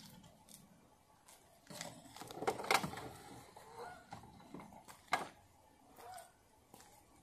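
Handling noise of a coiled electrical cord being pushed into a camper's exterior storage compartment: scattered knocks and clicks, busiest about two to three seconds in, with a sharp click about five seconds in.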